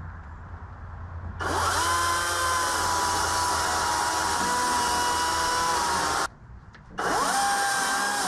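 EGO battery-powered chainsaw with a 16-inch bar spinning up with a quick rising whine and running steadily while cutting wood. The trigger is released about six seconds in, the motor stops abruptly, then it spins up again and runs on near the end.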